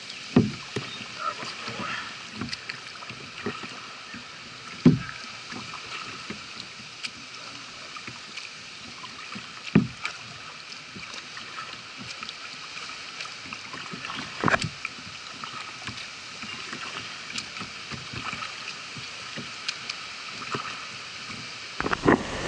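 Kayak paddle strokes in floodwater: four sharp strokes about five seconds apart, with lighter water sounds between, over a steady wash of moving water and wind.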